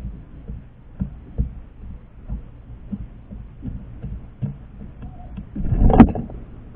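Irregular low knocks and thumps of birds on the feeder right beside the microphone, about one or two a second, with one louder bump about six seconds in.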